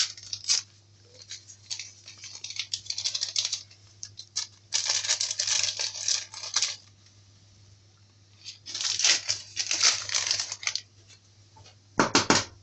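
A small paper packet of baking powder being torn open and handled, in several bursts of tearing and crinkling rustle, with a few sharp knocks near the end.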